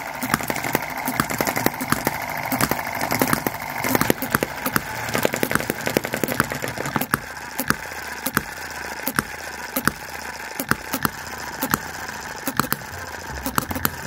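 Microcosm/OKMO model hit-and-miss petrol engines running, with sharp firing pops a few times a second, unevenly spaced. The gaps are the coasting strokes between firings, as the governor skips ignition until the flywheel slows.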